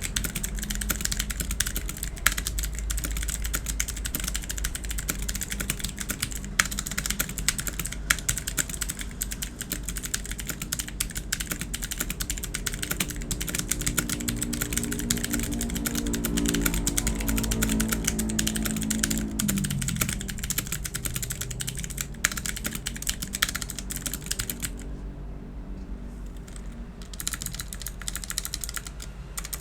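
Fast typing on an Imperion Mech 7 mechanical keyboard with clicky Long Hua blue switches: a dense, steady stream of key clicks that pauses for about two seconds near the end. Midway a low hum swells in under the typing, drops in pitch and fades.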